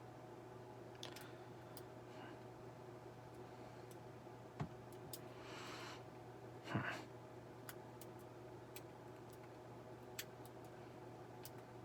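Faint, scattered clicks and ticks of a hook pick working the pin stack inside a Squire Vulcan padlock's keyway during single-pin picking, with two louder clicks about four and a half and seven seconds in. A steady low hum runs underneath.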